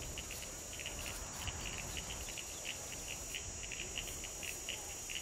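Night-time insects chirping: short, high-pitched chirps repeating about three or four times a second, over a faint steady high hiss.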